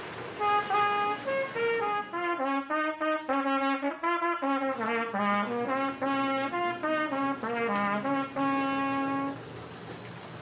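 Trumpet playing a tune, clear notes one after another, with a short pause near the end.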